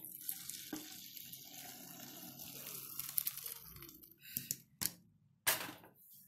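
Hot water from boiled basmati rice pouring off through a steel colander as the rice is drained: a steady splashing rush that dies away about four seconds in, followed by a few short, separate noises.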